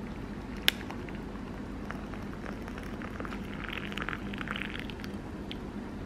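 Hot water poured from a kettle into a glass mug over a tea bag, splashing and gurgling most strongly from about two and a half to five seconds in. A single sharp click about a second in, over a steady low hum.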